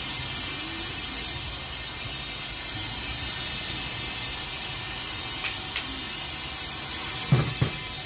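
Steam hissing steadily from a street-stall bun steamer. About seven seconds in come two quick knocks as the aluminium steamer lid is set back on.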